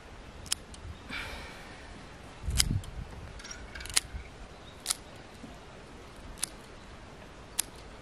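Hand scissors snipping through green plant stems: about half a dozen sharp snips at uneven intervals, with a short rustle of the stems about a second in. There is one dull knock about two and a half seconds in.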